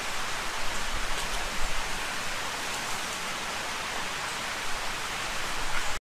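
Steady rushing noise of running water, an even hiss with no bird calls standing out.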